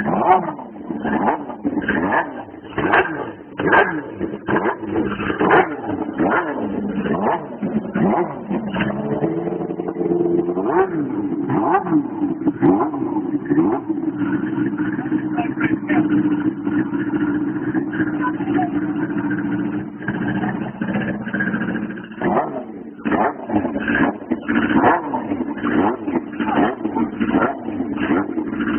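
Suzuki racing motorcycle's engine running while its throttle is blipped again and again, the revs rising and dropping sharply. It holds a steadier note for a few seconds past the middle, then the blipping starts again.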